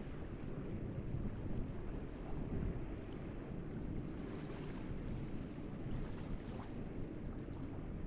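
Small waves washing up a sandy beach over a steady low rumble, with a surge of brighter foamy wash about four to five seconds in. Wind buffets the microphone.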